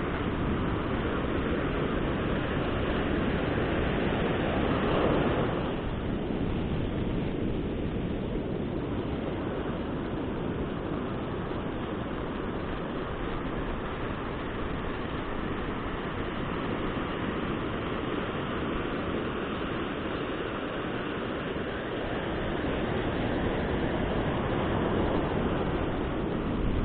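Ocean surf breaking and washing up a sandy beach, a steady rush that swells louder about five seconds in and again near the end.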